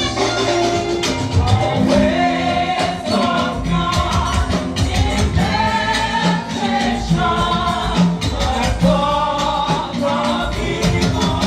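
A group of voices singing a hymn over instrumental accompaniment, with a steady percussion beat.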